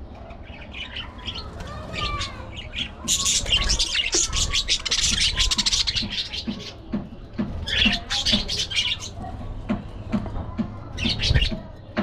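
Budgerigars chattering and chirping: a dense run of rapid warbling chatter begins about three seconds in and lasts a few seconds, with shorter bursts of chirps later and near the end.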